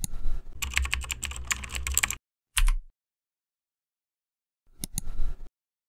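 Computer keyboard typing: a fast run of key clicks for about two seconds, a single heavier keystroke just after, and a short cluster of clicks near the end.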